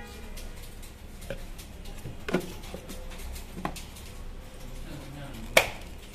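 Plastic knocks and clicks as a wood-grain ultrasonic aroma diffuser's cover and base are handled and tilted: four separate short knocks, the sharpest and loudest near the end.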